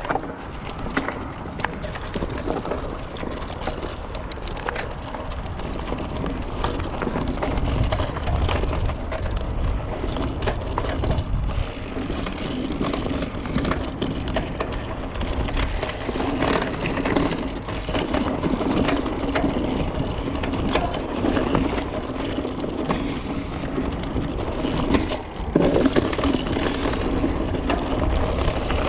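Mountain bike riding over rocky, gravelly trail: tyres crunching over loose stone, with steady clatter and rattle from the bike over the rocks and a low rumble of wind on the microphone.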